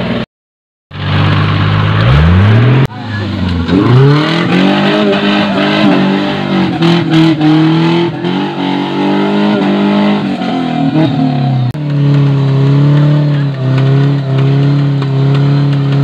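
Off-road 4x4's engine revving hard as it churns through a deep mud pit, its pitch rising and falling with the throttle, then held high and fairly steady near the end. The sound cuts out for a moment near the start.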